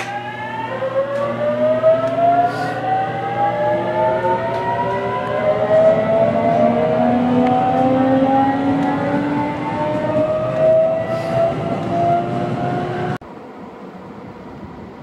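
JR Kyushu electric multiple unit's VVVF inverter and traction motors whining, heard from inside the passenger car. Several tones glide upward together as the train accelerates. The whine cuts off abruptly about 13 seconds in, leaving a quieter steady rumble.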